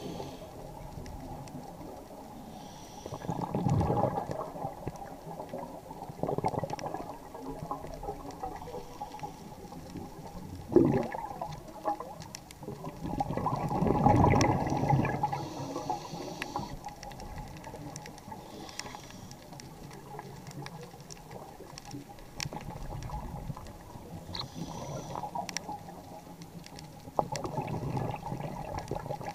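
Underwater sound of a scuba diver breathing through a regulator: several bubbling bursts of exhaled air a few seconds apart, with short higher hisses of inhalation between them and scattered faint clicks.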